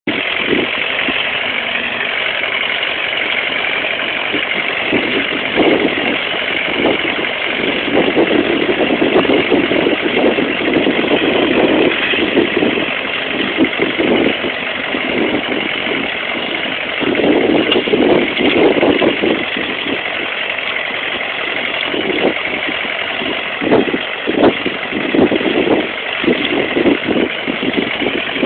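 International B414 tractor's diesel engine working under load while ploughing, running continuously and swelling louder at times, with irregular short knocks near the end.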